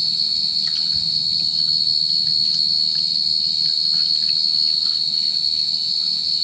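A chorus of insects shrilling in one steady, unbroken high-pitched tone, with a few faint light clicks over it.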